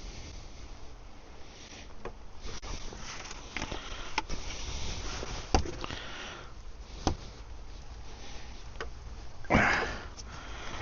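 Hand work under a car's bonnet: scattered light clicks and taps from tools and parts over a steady hiss, with a short louder rush of noise near the end.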